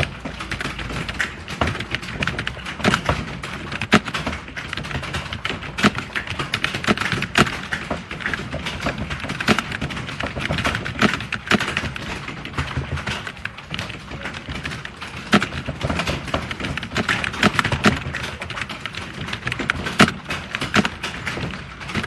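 Fast typing on a computer keyboard: a dense, uneven stream of key clicks.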